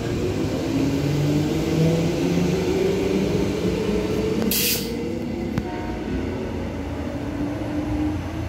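Transperth A-series electric multiple-unit train pulling out and accelerating away, its traction motors whining in several rising tones over a low rumble, easing off as it draws away. About halfway through there is a short sharp hiss.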